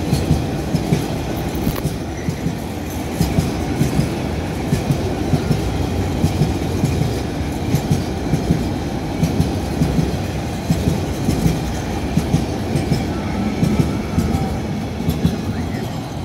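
Freight train of bogie oil tank wagons rolling past close by: a steady heavy rumble with a regular clickety-clack of wheels striking rail joints. The sound eases slightly near the end as the brake van at the tail goes by.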